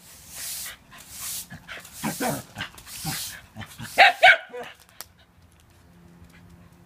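Shiba Inu yapping at a push broom whose bristles scrape across concrete in several strokes, then two loud, sharp barks about four seconds in.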